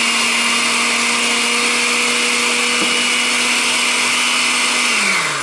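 Countertop blender running steadily on high with its loaded jar of pesto ingredients. Just before the end it is switched off and the motor winds down in pitch. The thick mixture is not turning over in the jar.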